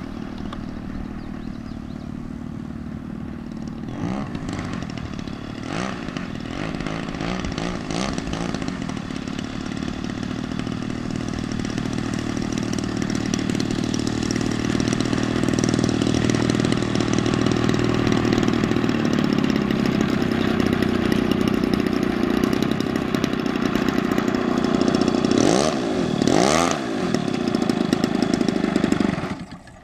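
Engine of a large radio-controlled model airplane idling as the plane taxis in, growing louder as it comes closer. There are three short throttle blips in the first several seconds and two more near the end, then the engine is cut off abruptly.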